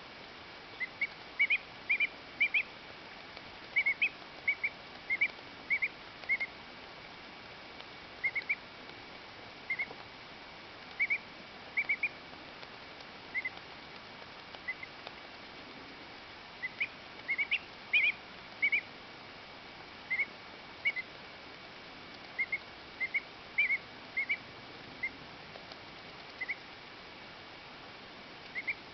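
Two-week-old duckling giving its short, high contented peeps, the 'happy peep' it makes while preening its feathers. The peeps come in quick runs of two to four with pauses between.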